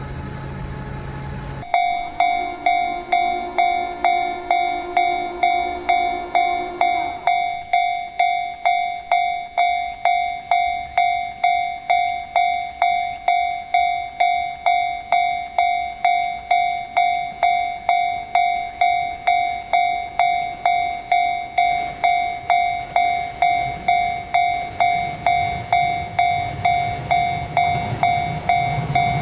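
Japanese railroad crossing alarm starting abruptly and sounding its repeated 'kan-kan' bell, about two rings a second, signalling that a train is approaching. A low rumble of the oncoming train builds near the end.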